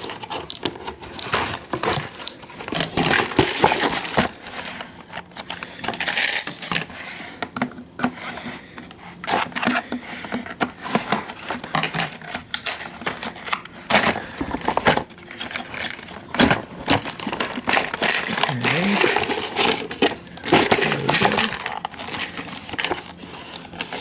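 Scissors cutting into a toy's packaging, with many sharp clicks, snips, knocks and crinkling as the box is worked open.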